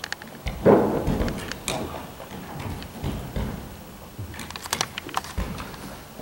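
Ice-tool picks and crampon points clicking, knocking and scraping against the holds and panels of an artificial dry-tooling wall as a climber moves up, with a louder burst of noise about a second in.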